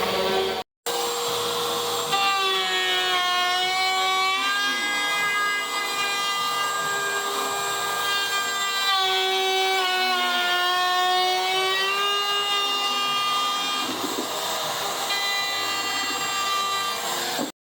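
Woodworking power tool's motor whining as it cuts or sands cabinet-door stock, its pitch sagging and recovering several times as the load changes. The sound drops out completely for a moment under a second in.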